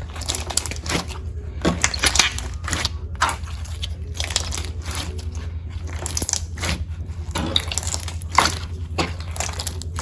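Slime with small beads and sand mixed in being kneaded and squished by hand, giving irregular crackling, crunching clicks over a steady low hum.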